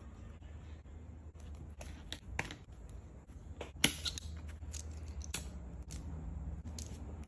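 Hand-stitching leather: light clicks and rustles as needles and thread are worked through the leather, with a sharp snip from thread snips cutting the thread about four seconds in. A low steady hum runs underneath.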